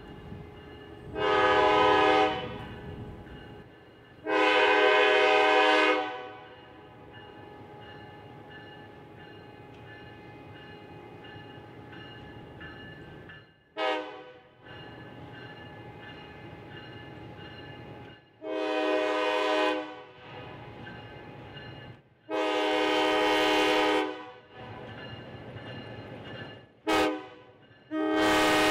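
EMD SW1200 switcher locomotive's air horn sounding a series of blasts: long, long, short, long, then long, short, long, the grade-crossing warning pattern. Underneath, between the blasts, the locomotive's 12-cylinder 567 diesel engine runs steadily as it moves along the track.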